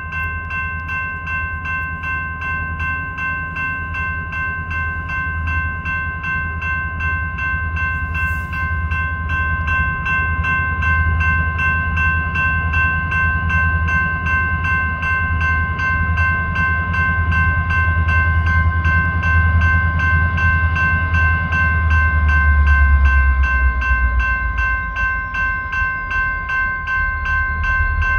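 Electronic railroad crossing bell ringing in a fast, steady rhythm. Under it, the low rumble of an approaching EMD SD40-2 diesel locomotive grows louder, loudest about 23 seconds in.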